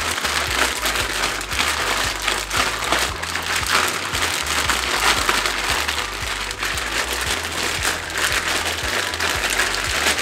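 Zip-top plastic bag crinkling and crackling continuously as beef in marinade is kneaded and mixed inside it by hand.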